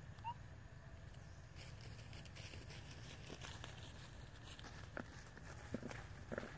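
Faint rustling and crackling of dry leaves over a low rumble, with a few soft clicks near the end. One short, slightly rising chirp comes about a third of a second in.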